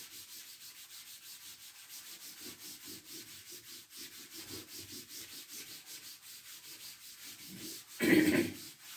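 Chalkboard being wiped clean with a duster: steady rubbing strokes, about three a second, with a brief louder sound near the end.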